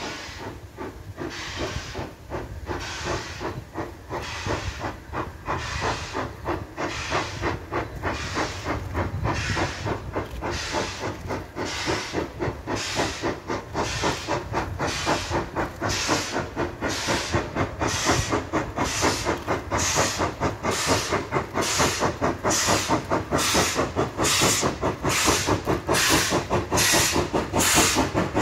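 Ivatt Class 2MT 2-6-2 tank steam locomotive working toward the listener, its exhaust chuffing in a steady beat. The beats start about one a second, quicken to about two a second and grow louder as it draws near.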